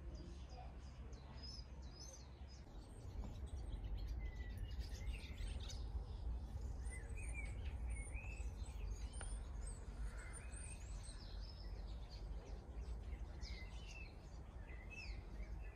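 Faint outdoor birdsong: several small birds chirping and twittering over a low, steady background rumble that grows a little louder about three seconds in.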